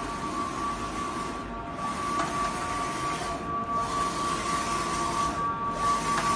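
Roll-to-roll UV inkjet printer running, its print-head carriage shuttling across the media: a steady mechanical hiss with a constant high whine. The hiss dips briefly about every two seconds, once per pass.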